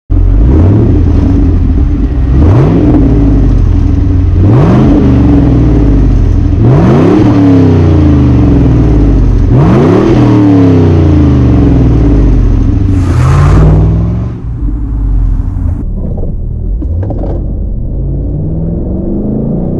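A 1999 Chevrolet Camaro's 5.7-litre LS1 V8 breathing through a Borla S-Type cat-back exhaust, revved from idle about five times, each blip rising and dropping back. A little after two-thirds of the way through, the sound changes to the engine heard from inside the car, pulling away with its pitch starting to climb near the end.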